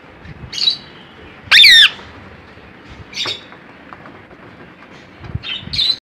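Cockatiel calls: a few short chirps scattered through, and one loud wavering screech about a second and a half in.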